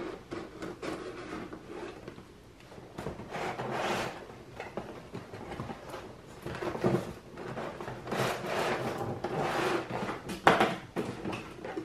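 A long cardboard box being handled and slid on a wooden worktop: irregular scraping and rubbing of cardboard against wood and hands, with a couple of sharper knocks, one about seven seconds in and one near the end.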